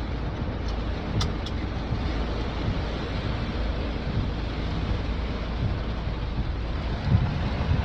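Heavy rain falling in a steady hiss, with wind rumbling on the microphone. There are a few sharp ticks about a second in.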